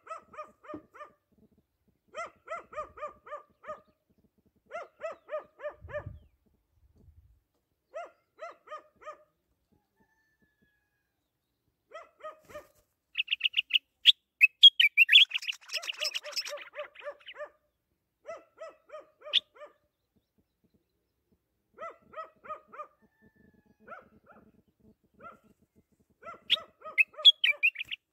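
A caged songbird sings in loud bursts of quick, high chirping notes about halfway through and again near the end. Behind it, a dog barks in repeated quick runs of short yaps.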